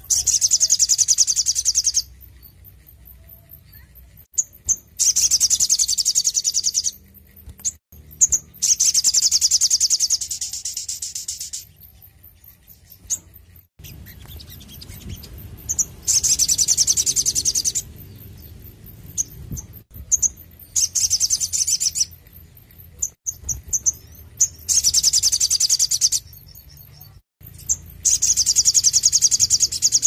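Male olive-backed sunbird (sogon) singing: loud, fast, high-pitched trills of one to three seconds, repeated about seven times, with short single chips between them.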